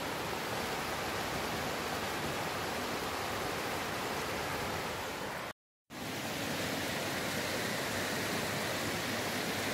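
Steady rushing of a swollen, muddy river after a flood, broken by a half-second gap of silence just past the middle.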